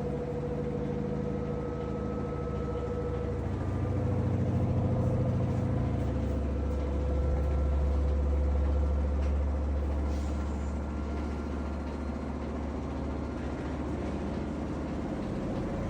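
Samsung washing machine spinning its drum on the spin cycle: a steady motor whine over a low drum rumble, which swells for several seconds in the middle and then settles.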